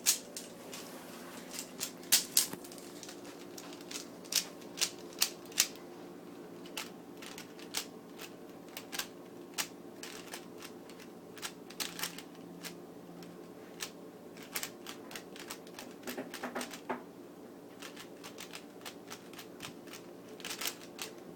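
Rubik's cube being turned quickly during a timed solve: irregular plastic clicks and clacks of the layers turning, coming in quick flurries with short gaps between them.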